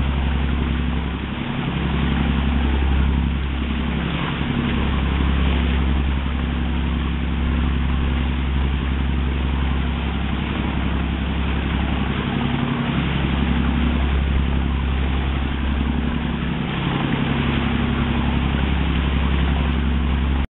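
A boat engine running at a steady speed, under a steady hiss of pouring rain and water rushing past the hull.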